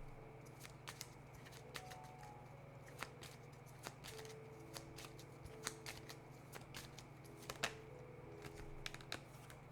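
Tarot cards being handled: scattered light clicks and taps as cards are flipped and laid down, over a faint steady hum.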